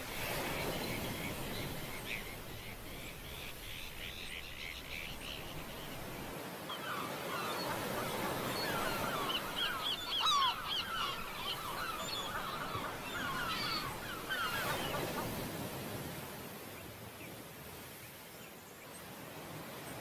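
A flock of birds calling, many short squawks and chirps in quick succession, busiest from about six to fifteen seconds in, over a steady wash of surf and wind.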